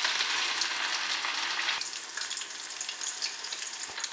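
Breadcrumb-coated chicken fillet frying in hot oil: a loud, steady sizzle with scattered crackles that drops somewhat about two seconds in.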